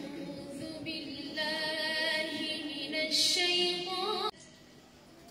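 A young woman reciting the Quran in melodic tajweed style, one unaccompanied voice in long held notes. The pitch steps upward before the phrase breaks off about four seconds in, a pause for breath.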